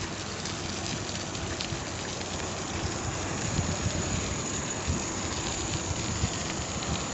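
Steady rushing noise of riding a bicycle along an asphalt road: wind buffeting the microphone, with the tyres rolling on the pavement.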